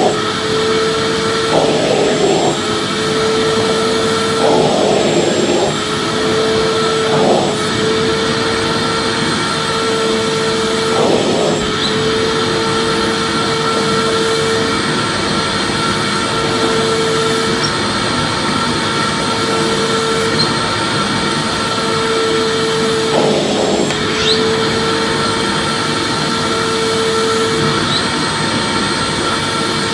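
Vacuum cleaner running steadily: a constant dense hiss under a steady hum-like tone that drops out briefly now and then, with a few short rougher bursts, a handful of them in the first half.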